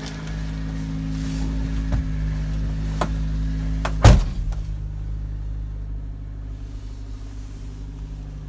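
Subaru Sambar's small four-cylinder engine idling steadily, heard from inside the cab. A few light clicks, then one sharp knock about four seconds in.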